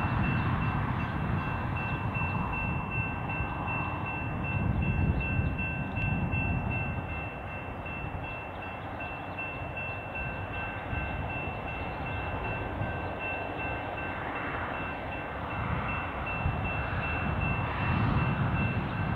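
Distant approaching train, hauled by steam locomotive R711 and diesel-electric T395: a low rumble that swells and fades and grows louder toward the end. A faint steady high-pitched tone sits above it.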